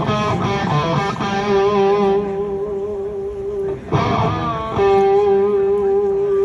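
Distorted electric guitar played loud through a stage amplifier at a sound check. A run of picked notes ends in a long held note that fades away. About four seconds in a fresh chord is struck, followed by another long sustained note near the end.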